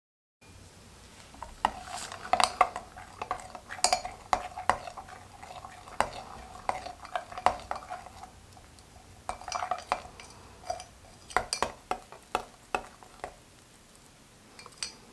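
Metal spatula stirring a thick surfactant bubble-bath mixture in a glass beaker, clinking and scraping against the glass in irregular taps. It is stirred slowly so as not to whip the mix into foam.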